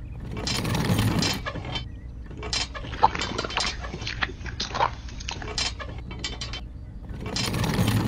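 Irregular light clicks, clinks and knocks of a handmade miniature concrete mixer as its drum is tilted on its pivot by hand and wet cement is poured into a small metal wheelbarrow, with one sharper click about three seconds in.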